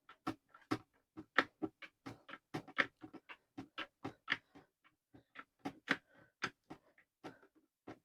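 Irregular light clicks and taps, about three or four a second, from small plastic and metal parts being handled and fitted together during reassembly of a speaker.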